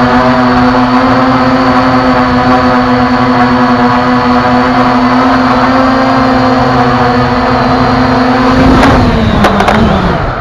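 Quadcopter drone's motors and propellers whining steadily at one pitch, very close as if picked up on the drone's own camera. About nine seconds in the pitch sags and there are a few knocks as the drone touches down on the tarmac, then the motors wind down.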